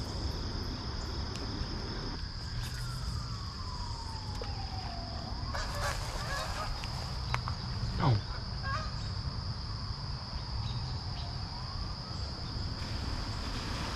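Geese honking as a flock comes in to the pond, over a steady high-pitched chorus of crickets.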